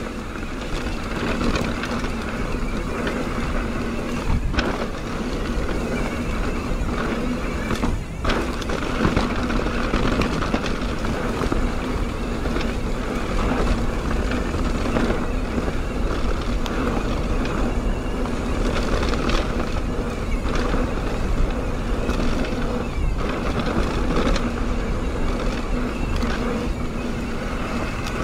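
Mountain bike ridden along a dirt singletrack: a steady rush of tyre and wind noise, with a few sharp knocks from the bike over bumps.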